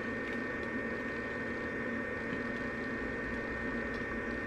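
A steady electrical hum with a thin, high whine and a faint hiss, unchanging throughout.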